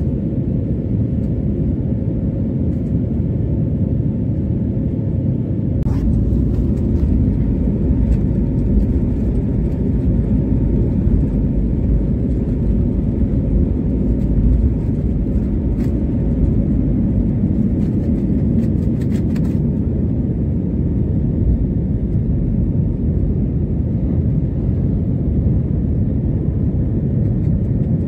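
Steady low road and engine rumble of a car driving, heard from inside the cabin, with a few faint ticks or rattles about six seconds in and again near the twenty-second mark.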